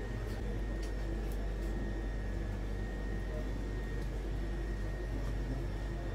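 A steady low machine hum with a thin high whine over it, and a few light clicks in the first two seconds.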